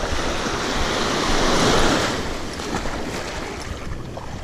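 Small surf washing in the shallows, swelling louder about a second and a half in and then easing off, with wind rumbling on the microphone.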